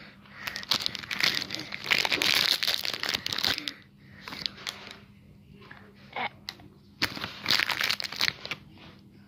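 Aero chocolate bar wrapper crinkling and rustling as the bar is unwrapped and handled. A long bout of crinkling fills the first few seconds, and a shorter one comes about seven seconds in.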